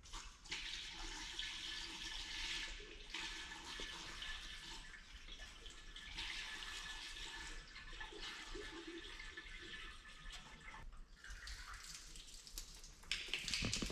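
Antifreeze being poured into the radiator of a 1949 John Deere A: a steady splashing run of liquid in four long pours with short breaks between them, filling it until it overflows.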